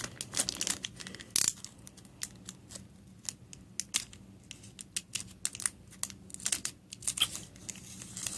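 Foil wrapper of a Pokémon TCG booster pack crinkling and tearing as the pack is opened, a run of irregular sharp crackles.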